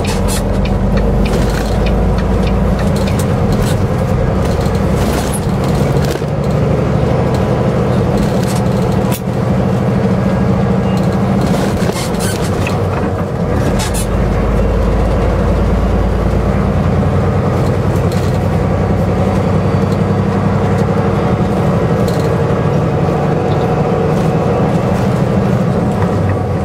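Semi truck's diesel engine running steadily while driving, a loud low drone with road noise and scattered brief clicks and rattles.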